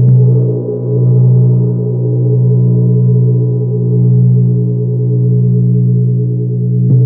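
Large hanging gong played with a soft round mallet: struck at the start and again near the end, its deep hum ringing on between the strokes with a slow swelling pulse.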